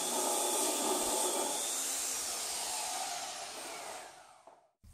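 Makita handheld belt sander running steadily, its sanding belt working a slot into a pine 2x4. It is then switched off and winds down, fading out just before the end.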